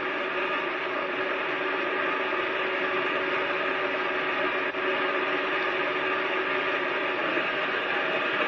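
A steady hum with hiss, made of several held tones, with a brief dip a little under five seconds in.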